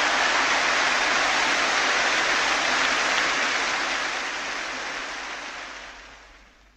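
Recorded football stadium crowd noise, a dense steady wash of many voices that fades out over the last two seconds.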